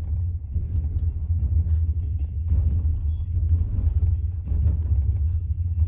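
Steady low rumble of a train running along the track.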